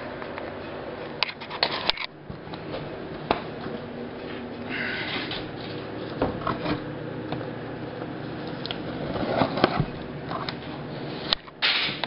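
Cardboard shipping box being cut open with a utility knife and its flaps pulled back: scrapes of the blade, cardboard rustling and scattered knocks of handling, with a louder rustle of flaps near the end.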